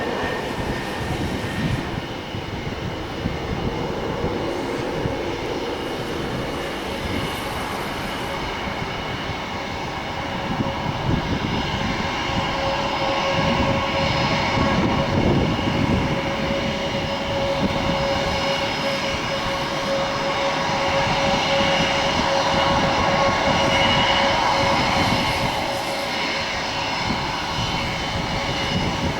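Jet airliner engines running with a steady whine over a broad rumble, growing louder about a third of the way in and easing off again near the end.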